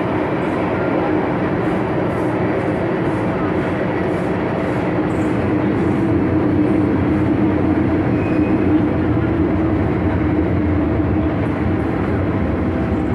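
MTR Tsuen Wan line M-Train heard from inside the carriage while running: a steady, loud rumble of wheels on rail and traction motor hum with no change in pitch.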